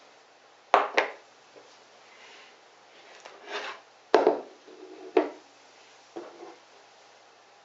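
Kitchen handling noises: a few sharp knocks and clatters as a plate, a block of raw tuna and a kitchen knife are put down on a plastic cutting board and wooden table. Two knocks come close together about a second in, then a short scrape and the loudest knock around four seconds, with lighter knocks after.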